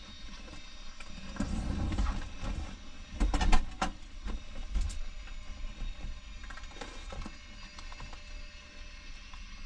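Clicks, knocks and rustles of a pilot handling controls and gear in a small plane's cockpit, the engine not running, over a low rumble. A quick cluster of sharp clicks about three and a half seconds in is the loudest part, with a few more clicks about a second later.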